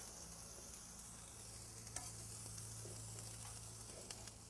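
Slices of Spam sizzling faintly on a hot gas grill, a steady hiss over a low hum, with a couple of faint clicks about two seconds in and near the end.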